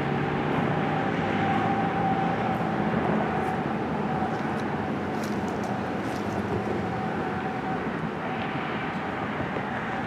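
Outdoor tornado warning siren sounding during the monthly test: a steady alert tone held at one pitch. Lower tones slide downward near the start as a siren winds down.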